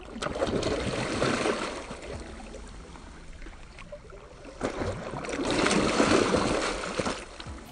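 Water splashing in two bursts of about two seconds each: a hooked striped bass thrashing at the surface as it is drawn in to the bank.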